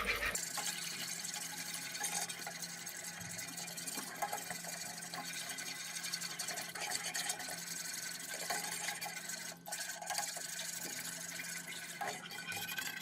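A thickening butter, flour and milk sauce being stirred steadily in a saucepan on the heat, a continuous wet stirring sound over a steady low hum.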